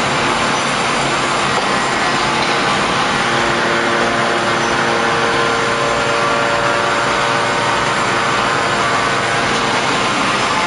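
Hydraulic open-die forging press running: a loud, steady mechanical drone of many held tones over a noisy hiss.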